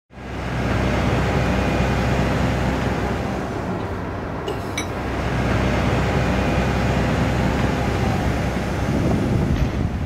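Heavy diesel machinery running steadily, a continuous low engine drone, with a couple of short clicks about halfway through.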